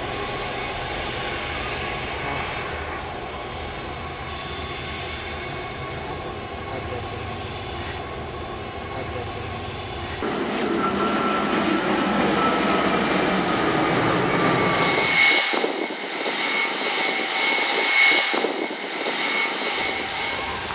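Jet engines of a Boeing 747 at takeoff power, a steady rumbling roar as it lifts off and climbs away. About halfway in, the sound jumps abruptly louder. A few seconds later it changes again: the deep rumble drops out and a steady high engine whine takes over, as an Antonov AN-124 comes in on approach.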